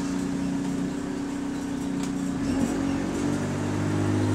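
Bus engine heard from inside the passenger saloon, running with a steady note. About two-thirds of the way in the pitch shifts and a deeper hum comes in.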